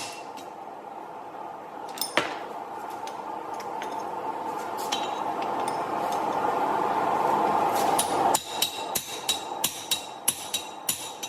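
Hand hammer striking steel on an anvil with a bright ring: two single blows, then a steady rushing noise that grows louder and cuts off suddenly, then a run of quick blows about three a second.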